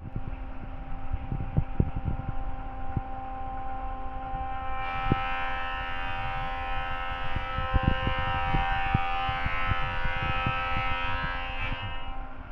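A machine running with a steady pitched hum and irregular low knocks; a hiss joins about five seconds in and stops shortly before the end.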